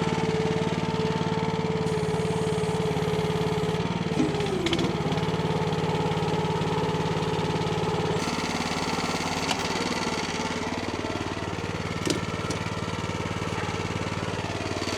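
A small engine running steadily. Its pitch dips briefly about four seconds in and its note changes about halfway through, with a few short knocks.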